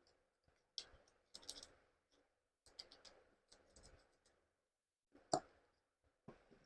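Faint, irregular clicks, taps and short scrapes of small parts and tools being handled, with one sharper click about five seconds in.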